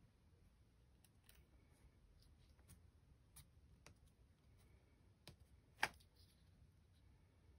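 Quiet handling sounds of paper collage: faint scattered taps and light paper noises as small paper pieces are glued and pressed onto a sketchbook page with a glue stick, with one sharper click about six seconds in.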